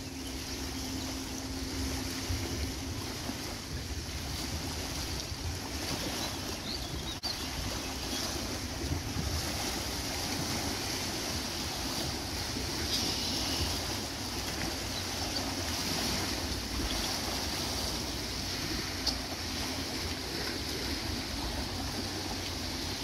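Small lake waves washing steadily on a stony shore, with wind noise on the microphone and a few brief, faint high bird chirps now and then. A low steady hum is heard through the first few seconds.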